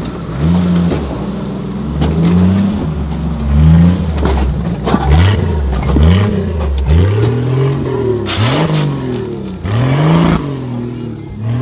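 Off-road vehicle engine revving up and dropping back again and again as it crawls through a rock garden, the revs coming quicker in the second half, with sharp knocks of tires and chassis on rock. Two bursts of hiss come near the end.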